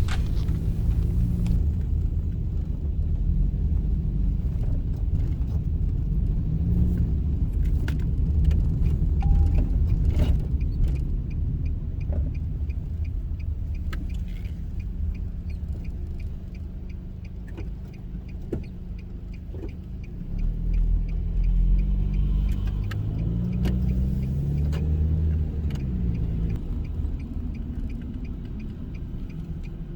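Car driving along a road: steady engine and road rumble, with the engine note rising and falling as the car speeds up and slows, loudest about two-thirds through. A faint regular ticking runs through the second half.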